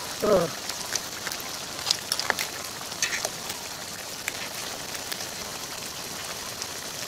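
Giant mud crabs in tamarind sauce sizzling in a hot pan: a steady hiss with scattered crackles and pops.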